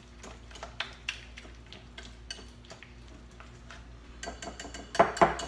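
Wire whisk beating a thick cream cheese and shredded cheese mixture in a glass bowl: a run of quick clicks of metal against glass. The clinks grow louder and ring from about four seconds in, loudest around five seconds.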